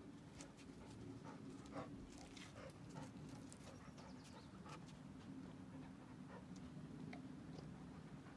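Faint dog panting, with scattered light clicks.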